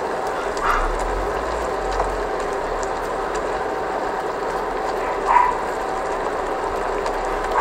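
Tomatoes, onions and ginger sizzling and simmering in a wok while a wooden spoon stirs and scrapes through them, with two short, brighter sounds about a second in and again past the middle.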